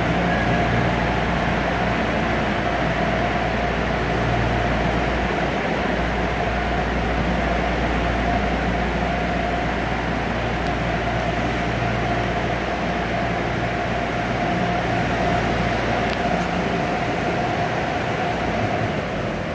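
A steady mechanical hum with a high whine held through it, easing off slightly near the end.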